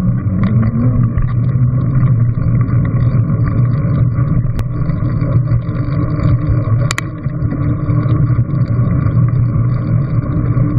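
Wind rush and tyre rumble from a bicycle ridden at about 11–14 mph on a concrete path, heard through a GoPro Hero3, as a steady muffled roar. Two sharp clicks come through, one about halfway and one a couple of seconds later.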